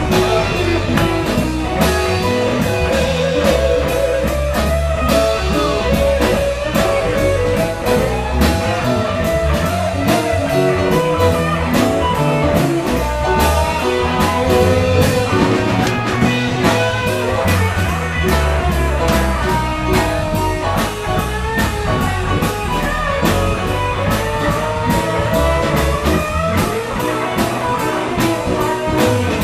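Live rock band playing with electric guitar, bass guitar, keyboard and drum kit, the drums keeping a steady beat under moving guitar lines.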